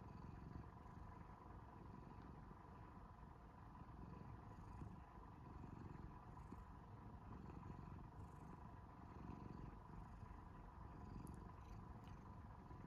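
A domestic long-haired cat purring faintly and steadily, a low rumble that swells and fades every second or two with its breathing.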